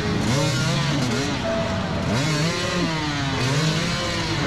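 Several enduro dirt-bike engines revving unevenly and overlapping, their pitch rising and falling, as the riders work the bikes over a log obstacle.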